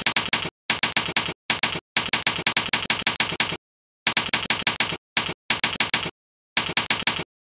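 Typing sound effect: rapid key clacks, about ten a second, in short runs with brief pauses between them, stopping shortly before the end.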